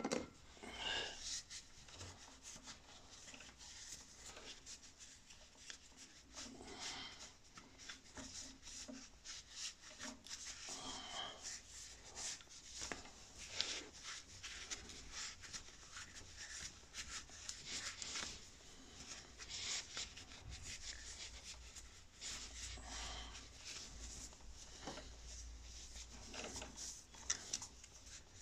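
Cloth rubbing and wiping over a motorcycle's front brake caliper and pistons wet with brake cleaner: faint, intermittent scrubbing and rustling, in short strokes with small pauses between them.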